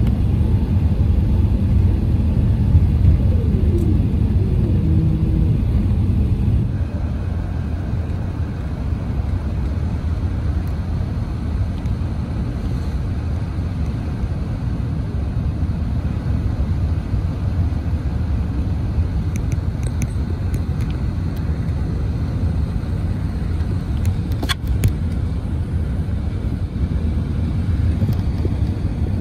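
Airbus A380 cabin noise on final approach: a steady, loud low rumble of engines and airflow, with a tone gliding up and back down in the first few seconds. The level drops slightly about seven seconds in, and a few faint clicks come later.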